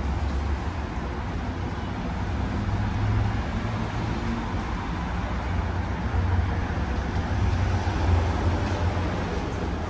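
Interior noise of an Alstom Citadis X05 light rail tram under way: a steady low rumble of the running gear and motors with road-like rolling noise, swelling a little now and then.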